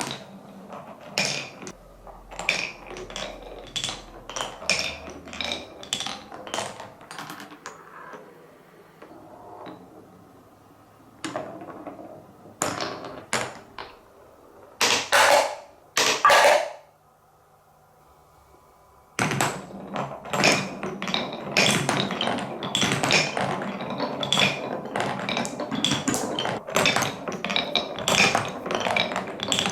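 Marbles rolling and clacking through a wooden Cuboro marble run, a run of irregular clicks and knocks as they drop and hit the wooden blocks. There are a few louder hits about fifteen seconds in and a brief lull, then from about nineteen seconds a dense, continuous clatter of many marbles at once.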